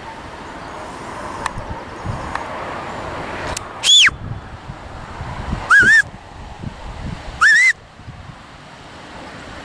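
Three short whistle commands from a sheepdog handler to the working dog: the first note falls sharply in pitch, and the next two rise. They come about a second and a half apart, over a low rush of wind.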